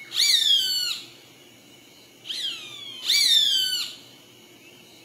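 Roadside hawk calling: three high, downward-slurring screams, the first and last each nearly a second long, with a shorter one between them.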